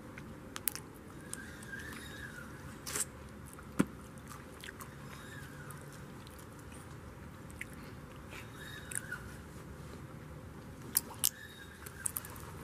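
Scattered sharp clicks and ticks over a steady low background hum, the loudest click about four seconds in and two more close together near the end.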